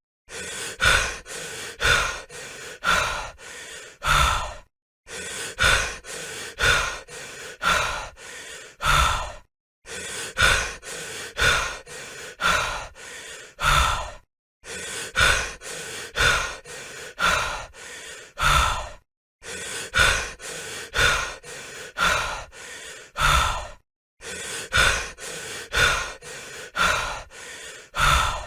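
A person breathing heavily, in quick in-and-out pants at about two breaths a second, broken by a short silence about every five seconds.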